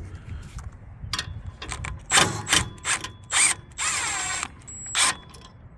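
Ratchet wrench clicking in several short bursts as the 12 mm nut holding a car horn to its bracket is loosened.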